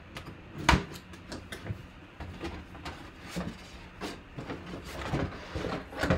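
Cardboard box being cut and opened by hand: a sharp knock under a second in, then a run of short scrapes and rustles as the lid and flaps are pulled off and packing paper is moved.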